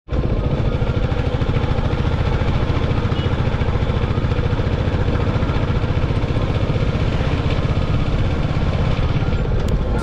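Motorcycle engine running steadily while riding, an even low pulsing note with no change in pace.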